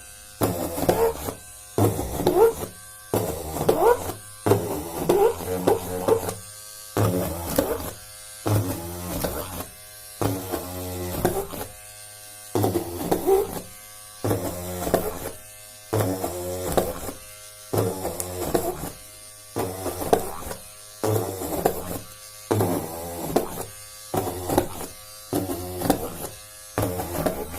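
Homemade mini drill's small electric motor buzzing in short bursts, starting and stopping about every one to two seconds, its pitch wavering within each burst.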